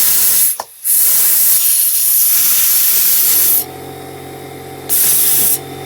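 Compressed air blasting in three bursts from an air blow-gun nozzle, clearing a clogged fuel passage in a lawnmower carburetor's bowl nut. The middle blast is long. A little over halfway in, a steady low motor hum starts underneath and keeps running, most likely the air compressor kicking on.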